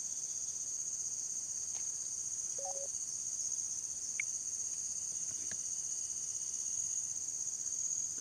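A steady, high-pitched chorus of insects, with a couple of faint short chirps partway through.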